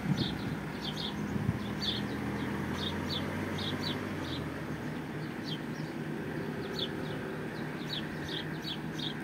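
Small birds chirping, short high chirps coming several times a second, over the low steady hum of a vehicle engine that fades about halfway through.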